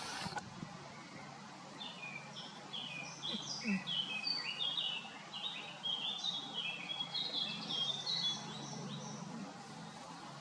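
Small songbird song: a quick, jumbled run of short chirping notes at changing pitches, from about two seconds in until near the end, over steady outdoor background noise. A brief click sounds right at the start.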